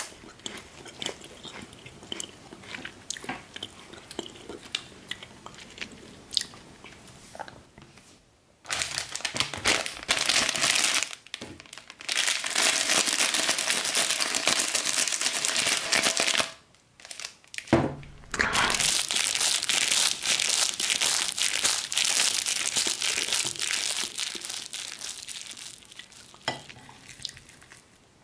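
A metal spoon scraping and clicking in mashed potato, then from about eight seconds in long stretches of loud crinkling and tearing as a foil chip bag is crumpled and ripped into strips. The crinkling fades toward the end.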